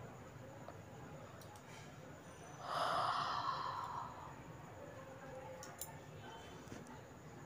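A single human yawn, a breathy voiced exhale lasting about a second and a half, a few seconds in.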